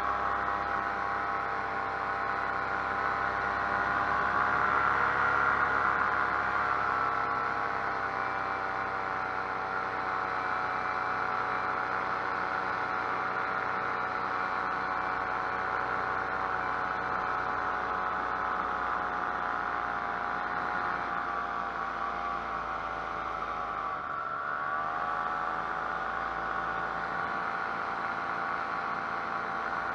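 Paramotor engine and propeller running steadily in flight, a constant pitched drone. The pitch dips briefly and comes back up near the end as the throttle is eased and reapplied.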